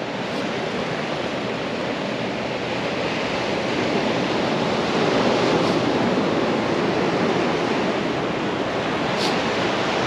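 Ocean surf breaking and washing up the beach: a steady rushing hiss that swells a little around the middle.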